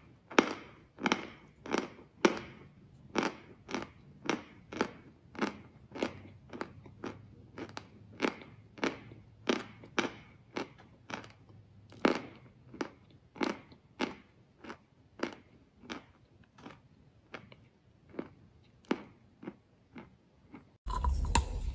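Chalk crunching in a steady run of sharp, separate crunches, about two a second. Near the end it cuts suddenly to louder, denser crunching over a low hum.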